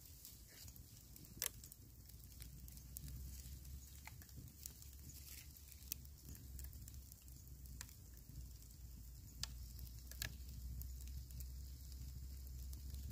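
Campfire embers and burning bamboo crackling faintly, with scattered small ticks and about five sharper pops, under a fish roasting on a bamboo skewer.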